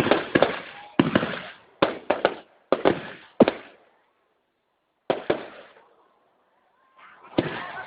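Aerial fireworks shells bursting: a quick run of sharp bangs, each dying away in a short rumble, then a pause of about a second before more bursts resume near the end.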